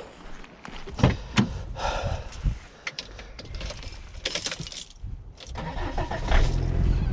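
A few clicks and a jingle of keys, then the Volvo's engine starts about six seconds in and runs steadily at idle.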